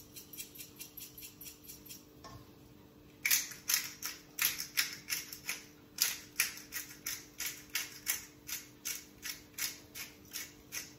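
Hand pepper mill grinding pepper into a pot, a dry rhythmic ratcheting click about three times a second, faint at first and louder from about three seconds in.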